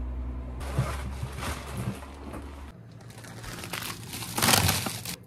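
Plastic freezer bag crinkling and rustling as it is handled, with a louder burst of crinkling about four seconds in.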